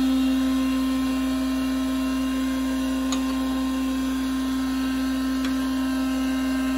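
DoAll surface grinder running with a steady hum and whine, its grinding wheel spinning while the table with its magnetic chuck traverses back and forth, not yet feeding into a pass on the 1911 frame. A couple of faint ticks are heard midway.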